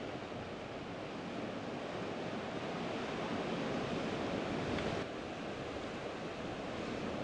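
Steady wash of sea surf against a rocky shore, with some wind on the microphone.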